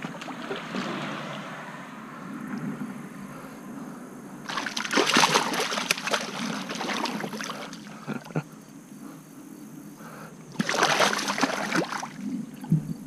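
Shallow river water splashing and sloshing as a hooked catfish is handled by hand at the bank, with two loud spells of splashing about four and a half and ten and a half seconds in, over a steady rush of water.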